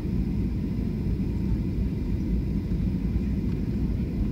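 Steady low rumble of engine and airflow noise heard inside the passenger cabin of a Boeing 737-400 on final approach, flaps extended.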